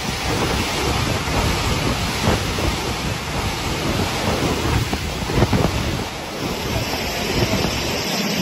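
Heavy storm surf crashing against a harbour seawall, with gale-force wind buffeting the microphone in gusts.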